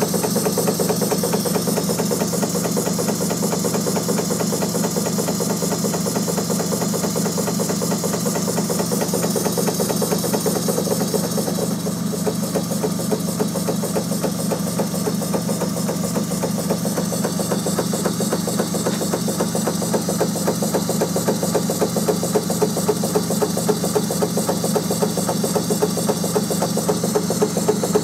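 Märklin 4161 twin-cylinder toy steam engine running steadily, its pistons and flywheel making a fast, even clatter over a steady hiss.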